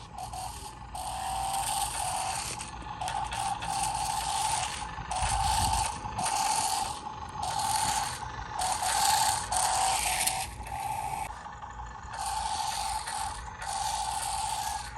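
Small electric motors and gears of a toy RC stunt car whining in about a dozen short bursts of a second or so, starting and stopping as it is driven.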